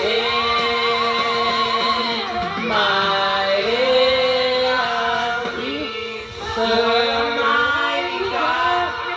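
Singing through a small karaoke machine's microphone and speaker: long held notes with a wavering pitch, broken by short breaths.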